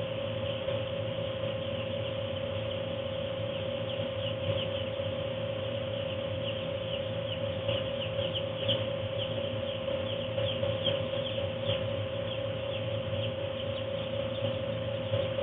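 A flock of two-day-old Ross 308 broiler chicks peeping continuously in short, high, falling chirps. Under them runs the steady hum of the house's forced-air heater.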